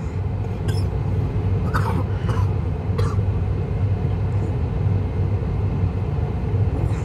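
Car engine idling, a steady low hum heard from inside the cabin. A few short faint sounds come about two and three seconds in.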